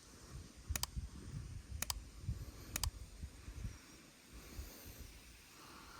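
Faint, uneven low rumbling with three sharp clicks about a second apart in the first half.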